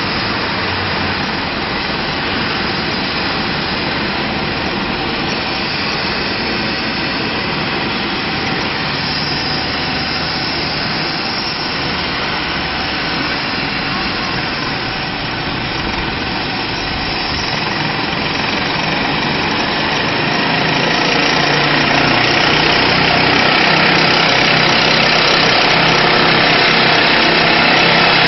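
Medical helicopter's turbine engines running at idle: a steady, loud whine and rush that grows louder about twenty seconds in.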